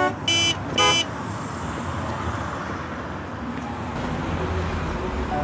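City traffic with car horns: three short toots in the first second, then steady traffic noise, with a low rumble swelling in near the end.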